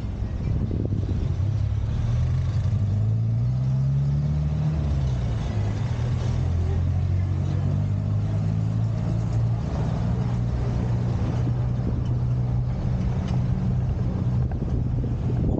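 Car engine running while driving, over road and wind noise; its pitch rises for a couple of seconds, drops about five seconds in, then holds steady.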